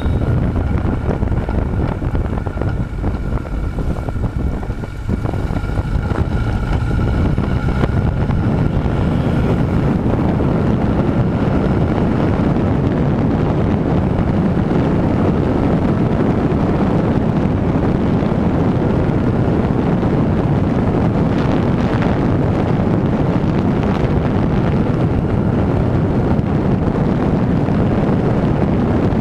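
Onboard sound of a Honda CB1000R motorcycle being ridden: its inline-four engine running steadily under heavy wind noise on the microphone. A faint steady tone sits over it for the first ten seconds or so, and the level dips briefly about five seconds in.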